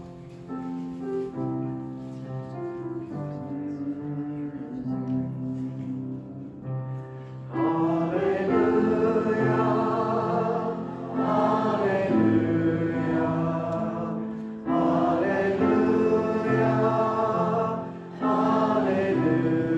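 Church music: an instrumental passage of held chords, then from about seven and a half seconds in a choir or congregation singing in phrases with the accompaniment.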